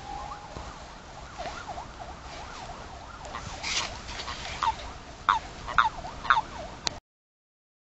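Toads in a mating ball giving short, chirping calls over a light hiss, several loud ones in quick succession near the end. The sound cuts off abruptly about seven seconds in.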